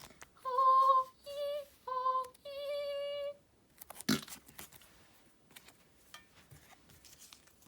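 A person's vocal 'noise': four short, high, steady-pitched sung notes, the pitch stepping down and up between two close tones. A sharp click follows about four seconds in, then faint handling of cards.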